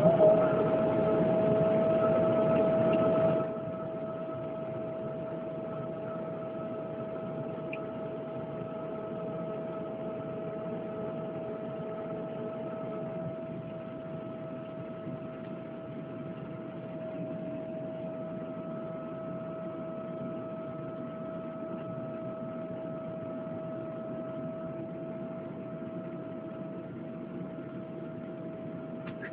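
A steady, even-pitched mechanical whine in a Boeing 777-200ER, over a background rush. The rush is louder for the first three or so seconds and then settles lower.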